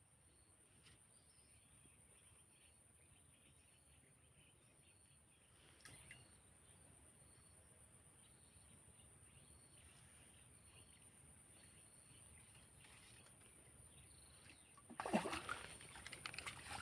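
Faint outdoor ambience with a steady high whine and small faint chirps. About a second before the end comes a sudden burst of water splashing, taken to be a snakehead hitting the frog bait at the surface and missing it.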